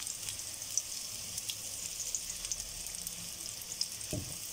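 Crushed skin-on garlic with chillies and curry leaves frying in a little coconut oil: a steady sizzle with fine crackles. A brief soft knock comes about four seconds in.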